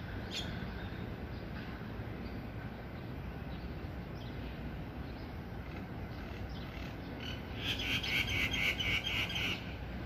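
Common myna (jalak Nias) calling. A short call comes just after the start, with faint scattered notes after it. Near the end comes a loud, fast run of repeated chattering notes, about six a second, lasting about two seconds.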